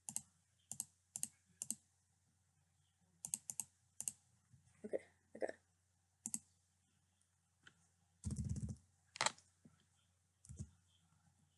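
Quiet, scattered sharp clicks from a computer mouse and keyboard, about a dozen, some in quick pairs. A dull noise of about half a second comes a little past the middle.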